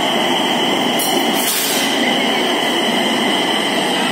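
Nagpur Metro train running into the station past the platform: a steady rumble of wheels on the rails with a steady high whine over it. A short hiss comes about a second and a half in.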